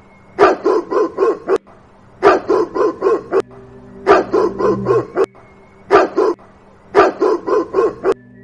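Dog barking in rapid runs of four or five barks, five runs with short pauses between them.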